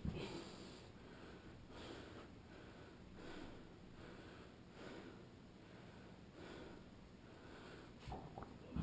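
Breathing of a man bench pressing a 70 kg barbell: short breaths drawn in and blown out in a steady rhythm, about one a second. A couple of sharp knocks come near the end as the bar comes down.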